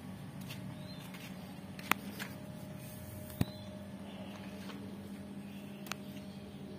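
A steady low hum with three sharp clicks, about two, three and a half, and six seconds in.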